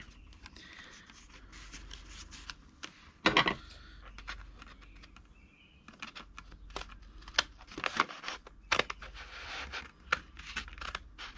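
Paper being cut and handled: scattered crisp clicks and rustles, the loudest about three seconds in and a busier run of them in the second half.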